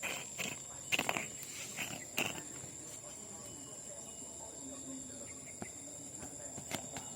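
Small plastic bottle cap knocking and clattering as a kitten bats it about: a flurry of light knocks in the first two seconds or so, then a few more near the end, over a steady high-pitched whine.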